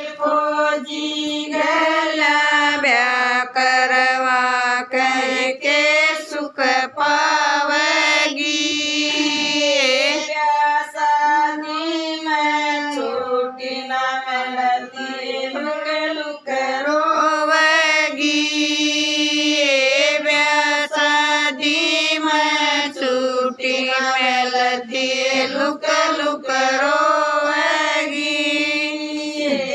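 Women singing a Haryanvi folk wedding song (sangeet geet) in long, held, wavering phrases.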